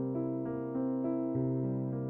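Outro music: a gentle piano melody, one note after another at an even pace of about three a second.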